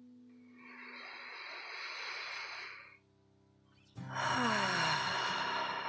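A long, deep audible breath lasting about two and a half seconds, building gently and cutting off sharply. After a second's pause, soft background music begins.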